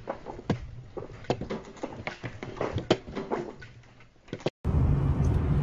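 Irregular sharp clicks and knocks, several a second, dying away about four seconds in. Near the end the sound cuts abruptly to a car's engine and road noise, a steady low hum.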